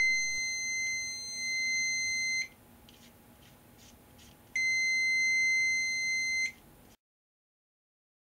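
Digital multimeter's continuity buzzer sounding a steady high beep, the sign of a complete circuit across the probes. It stops about two and a half seconds in and sounds again for about two seconds, with a few faint clicks in the gap.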